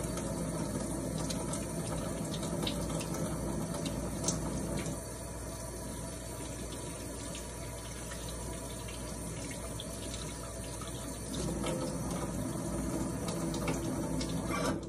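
Kitchen tap running into the sink while hands are washed under the stream. The water sound dips about five seconds in, comes back up a few seconds later, and cuts off suddenly at the very end as the tap is turned off.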